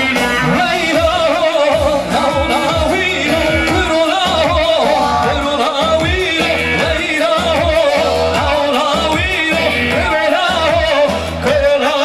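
Loud live dance music played through a PA system: a male singer on a handheld microphone sings an ornamented melody over a steady beat.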